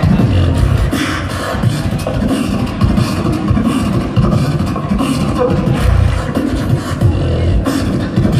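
A beatboxer performing: fast rhythmic vocal percussion, with deep kick-drum sounds and sharp snare- and hi-hat-like hits from the mouth.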